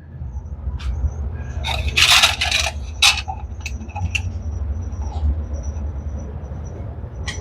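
Steel washers and a nut clinking as they are put onto a bolt, with a louder metallic rattle about two seconds in and scattered small clicks after it. A low steady hum runs underneath.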